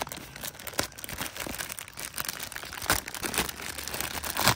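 Clear plastic bag crinkling and crackling as it is worked off a toy truck, with a run of quick crackles and the sharpest ones about three seconds in and near the end.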